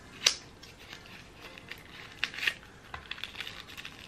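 Hands opening a small cardboard accessory box and unwrapping paper packaging: a few sharp clicks and light crinkling, the loudest click about a quarter second in.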